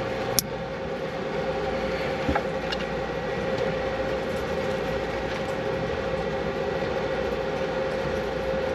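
Steady machine-like hum with a faint held tone throughout. A sharp click comes about half a second in and small clicks a little after two seconds, as small lever-type wire connectors are snapped shut on the wires.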